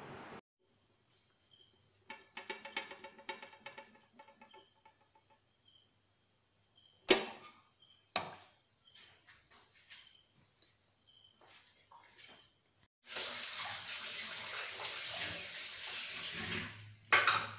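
A metal spoon clinks against a steel pan of ganache in a quick run of small ringing taps, followed by two sharp knocks about a second apart. Near the end a loud rushing hiss lasts about three and a half seconds, then another sharp knock.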